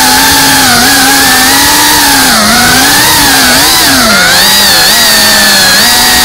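FPV racing quadcopter's brushless motors and propellers whining. The pitch rises and falls as the throttle changes, over a loud rushing hiss of prop wash on the onboard microphone.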